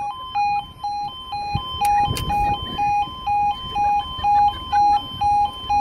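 Railway level crossing's electronic audible warning sounding: two alternating tones, high and low, switching back and forth about twice a second. A couple of short knocks come about two seconds in.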